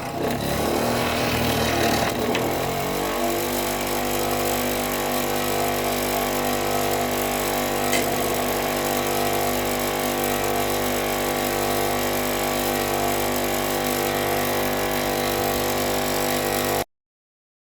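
Power tool working a wooden walking stick: irregular grinding against the wood at first, then an even, steady running hum from about three seconds in. The sound cuts off suddenly near the end.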